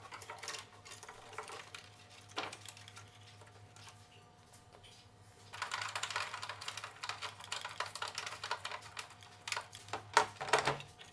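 Hands fitting and handling parts on the back of a Suz S201 table tennis robot: a run of small clicks, rattles and scrapes, sparse at first and busiest in the second half, with a few sharper knocks near the end.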